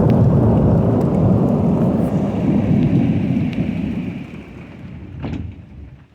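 Thunder rolling with rain, a loud low rumble that fades away over about four seconds. A single short click comes near the end.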